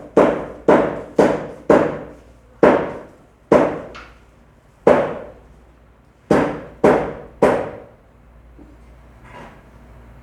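Butcher's cleaver chopping meat on a wooden block: about ten heavy chops, mostly in quick runs of two or three at roughly two a second, then only faint knocks near the end.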